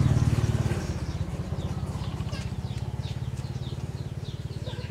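A motor engine running with a steady low throb, loudest at the start and gradually fading. Faint short high chirps sound above it.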